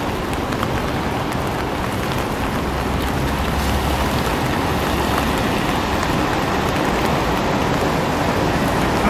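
Steady hiss of rain on wet pavement over a constant low rumble of road traffic.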